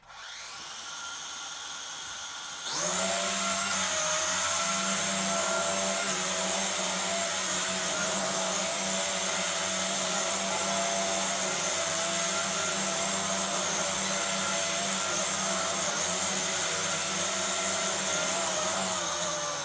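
Small toy quadcopter's electric motors and propellers whining. They start at a lower speed, step up to a louder, higher whine after about two and a half seconds, and then hold steady.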